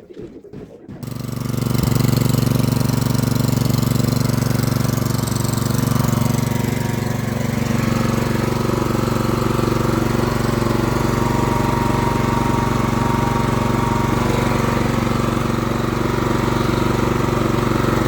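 Inco water pump engine catching about a second in and then running steadily, after being repaired from seizing up for lack of oil.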